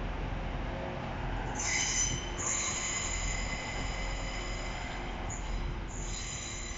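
Wheels of a slow-moving Class 185 diesel multiple unit squealing on curved track. The high-pitched squeal starts about a second and a half in, breaks off briefly twice and comes back, over a steady low rumble of the train rolling past.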